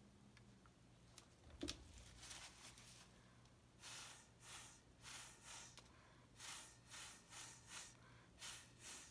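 A knock about one and a half seconds in as the canvas is set down on the drying rack, then short puffs of breath blown through a straw onto wet acrylic pour paint, about two a second over the second half.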